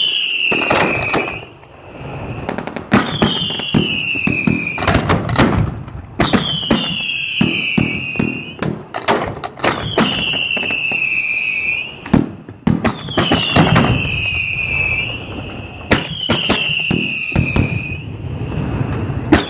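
Fireworks going off at close range: sharp bangs and crackle, and a whistle that falls in pitch over a second or two and repeats about every three seconds.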